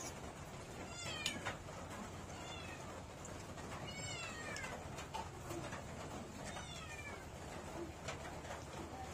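An animal calling four times, each call a short falling cry.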